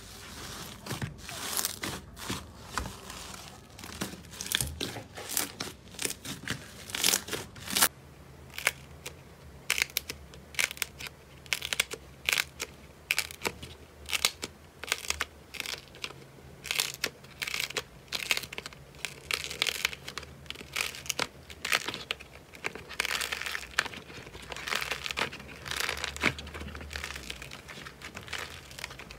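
Hands squishing and pulling apart slime, giving a dense run of irregular crackling, popping clicks. First a blue slime pressed in a bowl, then from about eight seconds in a thick orange slime squeezed and torn.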